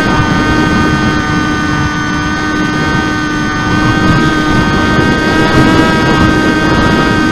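Brushless electric motor and pusher propeller of a Teksumo flying wing running at steady throttle in flight: a steady whine that drops slightly in pitch at the very start, then holds, over a rush of wind.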